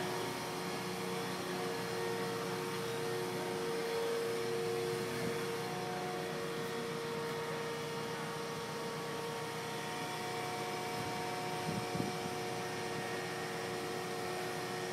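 Kansen mobile crane's engine running steadily during a lift, a constant drone with a steady whine over it. A brief knock about twelve seconds in.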